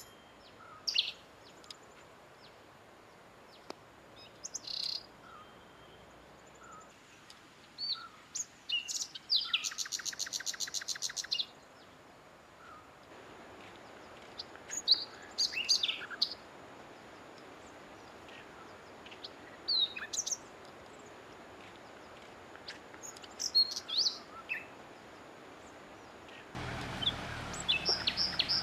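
Wild birds calling and singing: scattered short chirps and whistles, with a fast trill of rapidly repeated notes about ten seconds in. Near the end a louder steady noise comes in under the calls.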